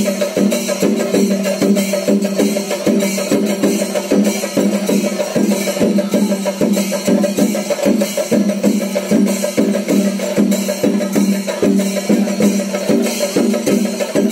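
Fast rhythmic percussion music: dense drum strokes, several a second, over a steady droning tone.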